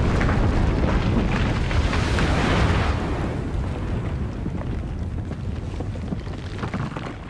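Earthquake sound effect: a deep rumble with crackling and rattling over it, easing off after about three seconds and fading toward the end.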